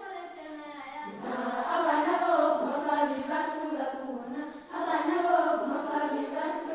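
A group of voices singing together in phrases of a few seconds each, with short breaks between phrases.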